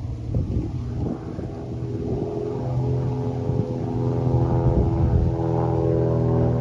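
Light single-engine propeller plane droning overhead, a steady engine tone that grows louder as it approaches.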